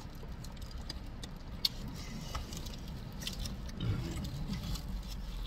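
Eating noises: scattered small clicks and crinkles, with one sharp click about a second and a half in, over a steady low rumble.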